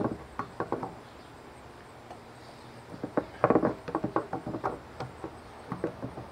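Adjustable wrench tightening a bulkhead fitting on a hollow plastic barrel: a run of short clicks and knocks as the wrench is repositioned and turned. There is a small cluster at the start, and a louder, busier cluster about three seconds in.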